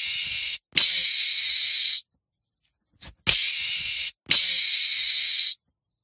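Meerkat hissing: two pairs of loud, long hisses. The first pair fills the first two seconds with a brief break in it. The second pair runs from about three to five and a half seconds in, also with a brief break, and a short click comes just before it.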